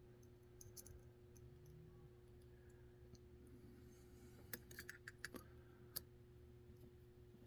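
Faint small clicks of lock pins and tools being handled while pins are loaded into a deadbolt's lock cylinder, with a cluster of sharper clicks about four and a half to six seconds in, over a faint steady hum.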